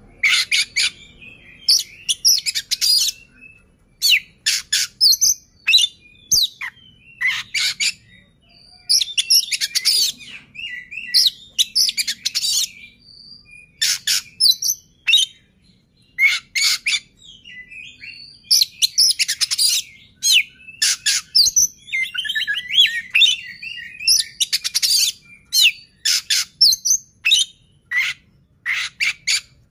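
Male Oriental magpie-robin (kacer) in full song: loud, varied whistled phrases about a second long, one after another with short pauses, and a longer unbroken run of notes about three quarters of the way through.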